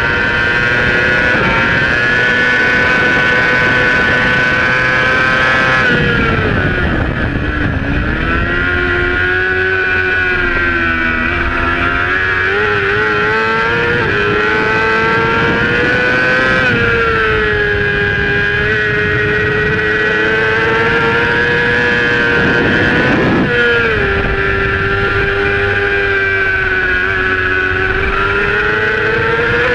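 A supersport racing motorcycle's engine runs hard at high revs. Its pitch falls sharply about six seconds in, then climbs back, with further steps in pitch later as the gears change. Wind rushes over the bike under the engine note.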